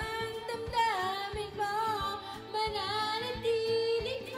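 A song playing: a high singing voice with sliding, ornamented notes over a steady beat.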